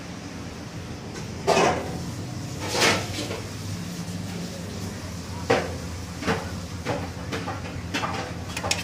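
A handful of sharp knocks and clatters, the loudest about one and a half and three seconds in and several in quick succession near the end, over a steady low machine hum.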